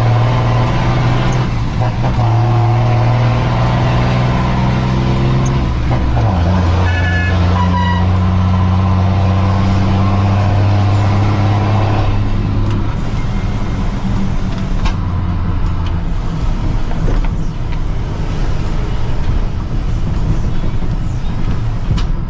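Mercedes-Benz 1620 truck's diesel engine running loud with a deep, steady drone; its pitch shifts about six seconds in, and after about thirteen seconds the drone gives way to a rougher, noisier rumble.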